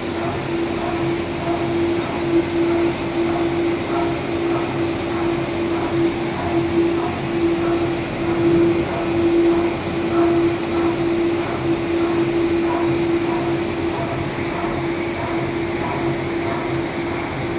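Cosmos 2BXL CNC vertical machining centre running: a steady mechanical hum with one strong tone that swells and fades a little every second or so.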